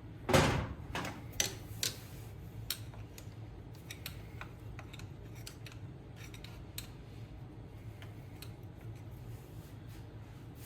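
Metal tools and engine parts being handled: one loud clank with a short ring about a third of a second in, a few sharper clinks over the next couple of seconds, then scattered light clicks.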